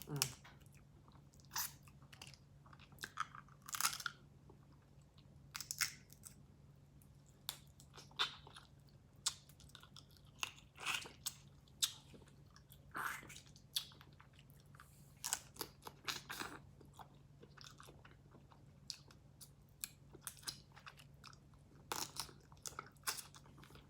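A person eating a seafood boil close to the microphone: chewing, with seafood shells crunching and cracking in scattered short snaps and clicks. A faint steady low hum runs underneath.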